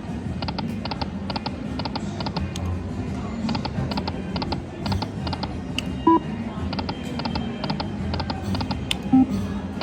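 Lightning Link slot machine sound effects: runs of rapid electronic ticking from the spinning reels over the game's music, with two short chimes, about six seconds in and again near the end.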